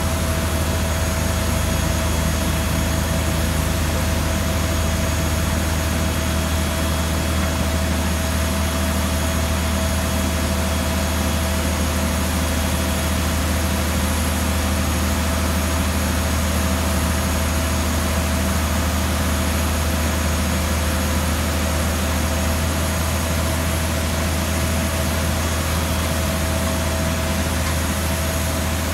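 Cargo loader's engine running with a steady, deep drone as its scissor lift raises an AKE container to the aircraft's cargo hold, with steady high-pitched whine tones over it.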